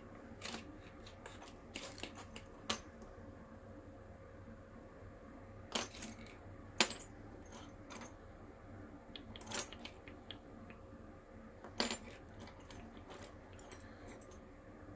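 Scattered light metallic clicks and clinks, about a dozen at irregular intervals and loudest a little past halfway, from small metal parts and tools being handled at the bench while coils are fitted into a rebuildable atomizer.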